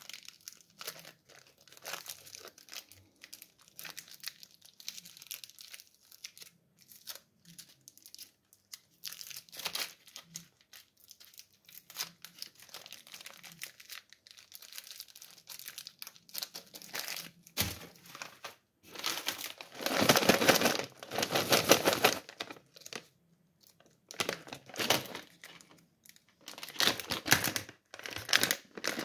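Plastic candy wrappers crinkling and tearing as they are opened by hand: a Snickers bar wrapper is peeled back, and later a Skittles pouch is handled. The rustling goes on in irregular bursts and is loudest about two-thirds of the way through.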